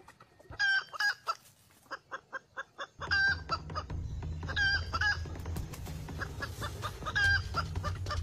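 Red junglefowl (labuyo) calling and clucking: several short pitched calls with a bright ringing tone, separated by runs of quick short clucks at about five a second.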